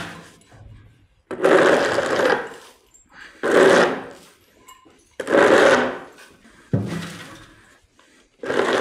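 Five rough scraping strokes, each about a second long, coming roughly every one and a half to two seconds.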